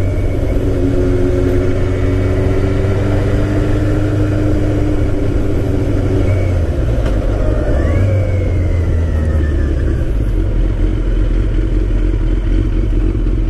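Motorcycle engine running as the bike is ridden slowly through town, under a steady rush of wind and road noise on the helmet-mounted microphone. The engine note rises briefly about eight seconds in, then eases off over the next two seconds.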